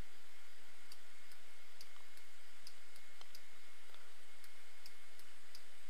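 Computer mouse buttons clicking faintly and at irregular intervals, two or three clicks a second, over a steady hiss.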